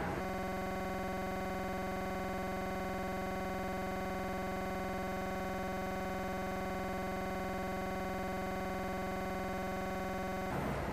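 A steady electronic buzzing tone with many overtones, unchanging in pitch and loudness. It cuts in sharply just after the start and cuts off sharply near the end, replacing the conversation.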